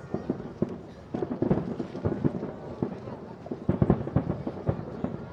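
Aerial fireworks bursting in rapid, irregular volleys of bangs and booms, with dense clusters about a second and a half in and again near four seconds in.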